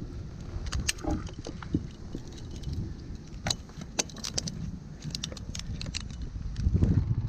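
Metal climbing and rigging hardware, such as carabiners, clinking and jingling in scattered sharp clicks over a low rumble.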